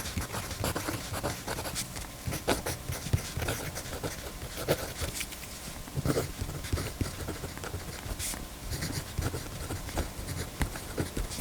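Irregular small clicks, taps and rustles of mechanical pencils being handled on a desk.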